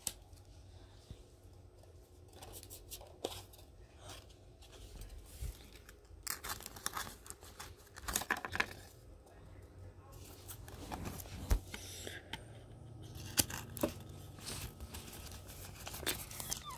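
Plastic binder card pages rustling and crinkling in short bursts as baseball cards are slid into the pockets, with a few light clicks.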